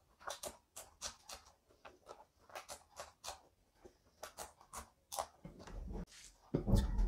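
Close-miked chewing of rice and a raw green chilli by hand: a run of short, crisp crunching clicks. Near the end, two low thuds as fingers work rice on the plate.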